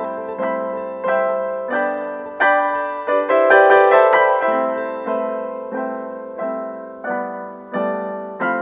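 Background piano music: single struck notes and chords, each fading before the next.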